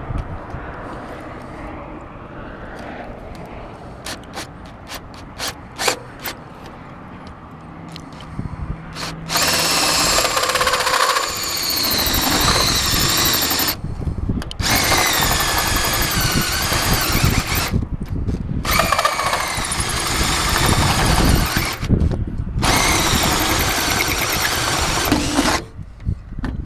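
Power drill boring the larger hole through the bus door for the lock mechanism, run in four bursts with short pauses, the bit giving a high whine that drifts in pitch as it cuts. Before the drilling, a few light clicks and taps.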